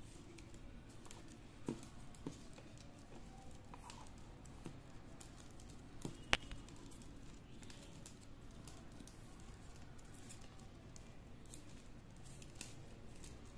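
Plastic craft wire being handled and knotted by hand: faint rustling and scattered light clicks, with one sharper click about six seconds in.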